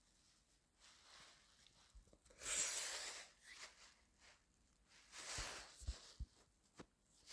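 Handling noise from a phone held close to the microphone: two short bursts of rustling, about two and a half seconds in and again about five seconds in, with a few soft bumps.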